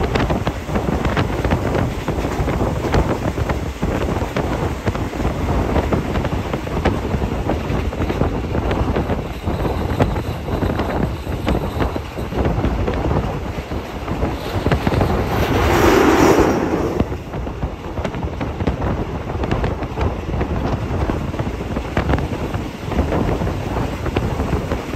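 Diesel-hauled passenger train running on the rails, heard from inside a carriage open to the breeze: a steady rattle and clatter of wheels on track mixed with wind rushing past the microphone. Roughly two-thirds of the way through, the noise swells into a louder rush for about two seconds.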